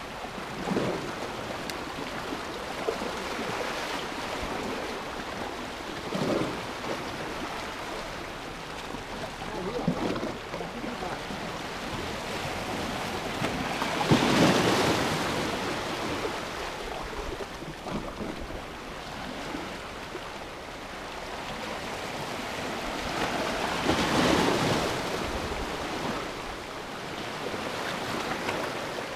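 Small sea waves washing in and splashing against a rocky shoreline, with a steady wash of surf. Two bigger waves break, one about halfway through and one later on.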